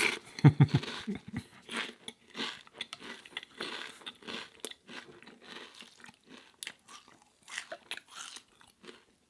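Close-miked eating: a loud bite about half a second in, then steady crunching and chewing of a crisp snack, most likely the seaweed crisps.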